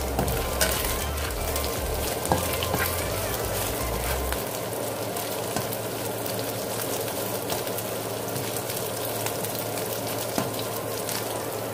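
Chopped garlic frying in hot oil in a pan: a steady sizzle full of small crackles and pops, with a few light clicks. A low hum underneath stops about four seconds in.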